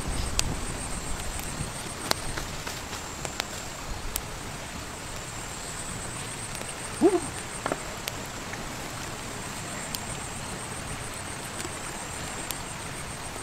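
Outdoor wood cooking fire under a clay pot: a steady hiss with scattered sharp crackles, over a steady high insect buzz. A brief low tone sounds about seven seconds in.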